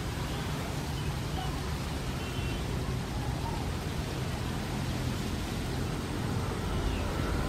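Distant steady rumble and hiss of a Boeing 737-800's CFM56 jet engines as the airliner approaches to land.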